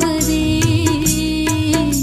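Background music: a held melody line over a steady beat with regular drum strokes.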